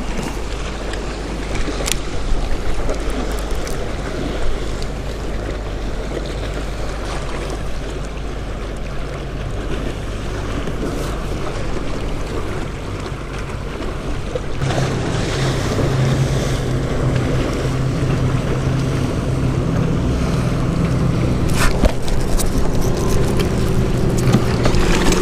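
Wind rushing over the microphone with waves slapping around a kayak, getting louder and heavier about halfway through.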